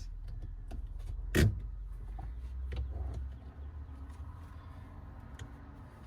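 Throttle linkage worked by a lawn mower throttle lever: small clicks and one sharp clack about a second and a half in, as the lever's detents fail to hold against the four throttle return springs. A low rumble underneath fades out a little past halfway.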